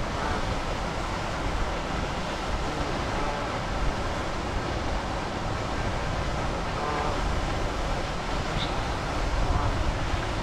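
Steady outdoor rushing noise with a low rumble underneath, and a brief high chirp about eight and a half seconds in.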